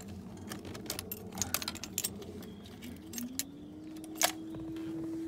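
Ignition keys jingling and clicking in a 1972 Datsun Cedric, then an electric whine that rises in pitch, holds steady for about two and a half seconds and falls away after a click near the end. This is the starter turning on a cold start with a bit of choke, without the engine catching; the owner suspects a flat battery.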